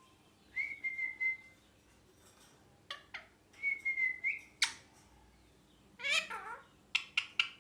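Pet ringneck parrot calling: two level whistles about a second long, a few sharp calls, a harsher squawk about six seconds in, then a quick run of short chirps near the end.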